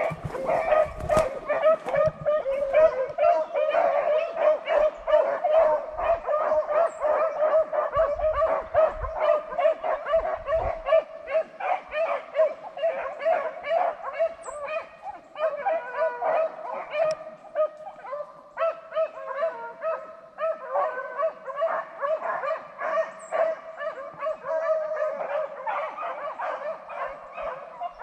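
A pack of beagles baying in full cry: many short, overlapping yelping calls without a break, the sound of hounds running a rabbit's scent trail.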